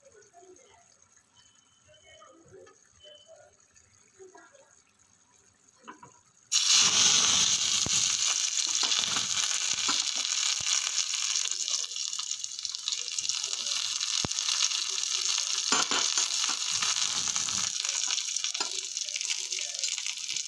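Chopped garlic dropped into hot oil in a small tempering pan, starting a sudden loud sizzle about six seconds in that keeps going steadily.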